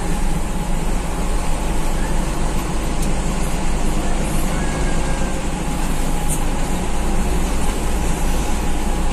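Mitsubishi-engined bus running steadily, its engine hum and road noise heard from inside the passenger cabin.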